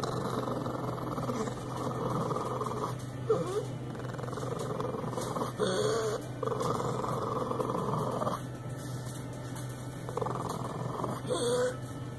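A pug breathing noisily in long breaths of a second or two each, with a few brief whines about three, six and eleven seconds in.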